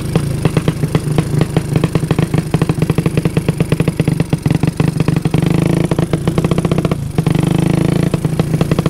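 Modified 200 cc motorcycle engine on a Koso PWK 32 carburettor, ridden at low revs with a chopping beat of separate firing pulses, set up to sound like a helicopter. About five and a half seconds in the revs rise to a smoother, steadier note, drop out briefly near seven seconds, and then the slow pulsing returns.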